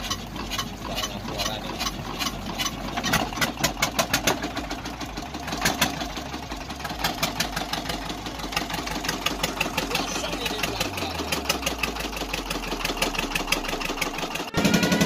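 Fishing boat's inboard engine starting and chugging, its knocks coming faster as it picks up speed, then dropping to a lower, steady running pitch about eleven seconds in. Music cuts in just before the end.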